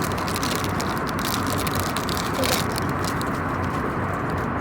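Steady roar of an airliner cabin in flight, with a few short crackles over it.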